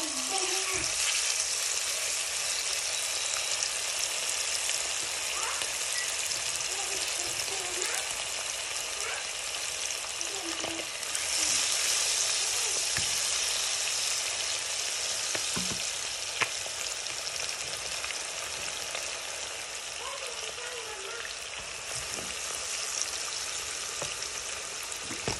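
Marinated chicken pieces sizzling as they deep-fry in hot oil in a pot, a steady hiss that grows louder about halfway through as more pieces go in.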